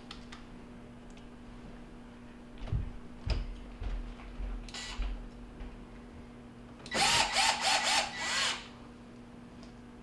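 Cordless drill-driver driving a screw into a refrigerator's plastic drain trap fitting in several short pulses, its motor whining up in pitch each time. A few knocks from handling the fitting come before it.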